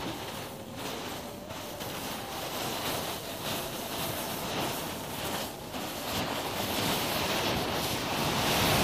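A trail of matchsticks used as a fuse for a firecracker catching one after another with a steady hiss, getting louder near the end as the flames flare up, over wind on the microphone.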